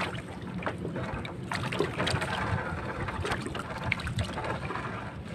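A wet cast net being hauled by hand out of the river over a boat's side: water dripping and splashing off the mesh, with scattered light clicks and knocks.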